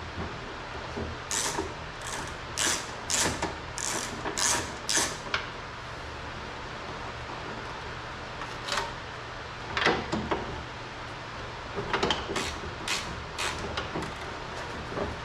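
A run of short scraping strokes from work inside a car door, about two a second, then a few scattered single ones over a steady low hum.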